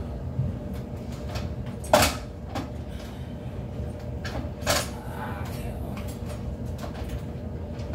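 Hard clacks and knocks of a stand mixer's beaters and parts being handled on a kitchen counter, two louder clacks about 2 seconds in and just before 5 seconds, over a steady low hum.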